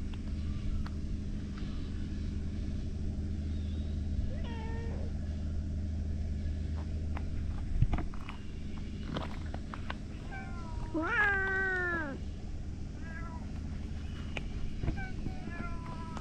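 Stray cats meowing: a few short meows and one longer, louder meow about eleven seconds in that falls in pitch. A steady low rumble runs underneath until near the end, with a sharp tap about eight seconds in.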